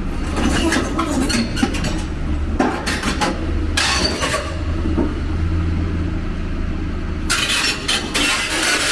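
Excavator diesel engine running steadily, with metallic clanking and clattering on top, loudest around three to four seconds in and again near the end.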